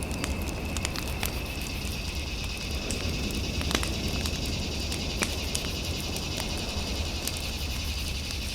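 Fireplace fire crackling, with scattered sharp pops (the loudest a little before the middle), over a steady low rumble and a faint steady high electronic tone.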